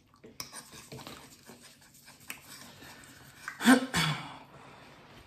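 Close-miked eating sounds: light clicks and soft wet sounds of a fork twirling creamy pasta against a wooden spoon, then a short loud mouth sound about three and a half seconds in as a forkful of pasta goes into the mouth.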